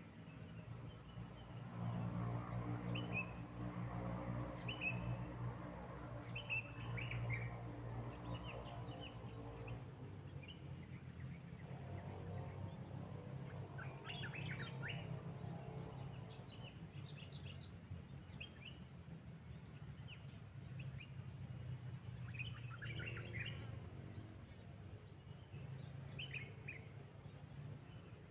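Sooty-headed bulbul giving short, chirpy call phrases every second or two. A low steady hum runs underneath, louder in the first ten seconds.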